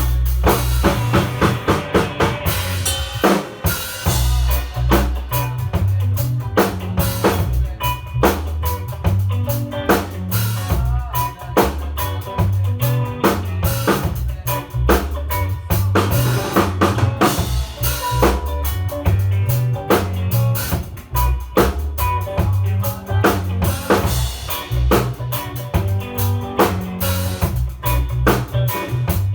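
A band playing in the studio, with a drum kit to the fore: dense kick, snare and rimshot hits over steady low notes.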